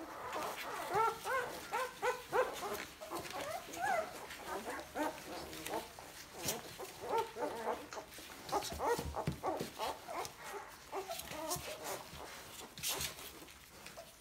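Two-day-old Fila Brasileiro puppies squeaking and whimpering in many short, high, bending calls, overlapping one another, with a few soft clicks near the end.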